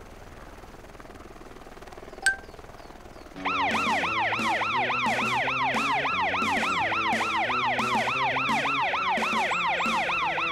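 Cartoon emergency-vehicle siren sound effect in a fast yelp, each cycle rising and falling in pitch, about three cycles a second. It starts abruptly about three and a half seconds in and follows a short high ping about two seconds in.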